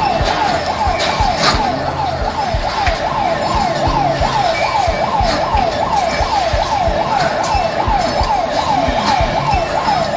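Seismic alert siren wailing rapidly up and down, about three sweeps a second, with scattered knocks and clatter underneath.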